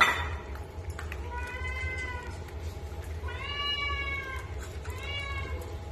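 A cat meowing for food three times, drawn-out meows that rise and fall, the middle one the longest and loudest. A sharp knock sounds right at the start.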